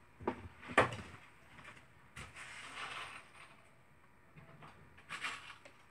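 Someone rummaging out of view: a few sharp knocks and clicks, the loudest just under a second in, a short rustle from about two to three seconds in, and a couple more clicks near the end.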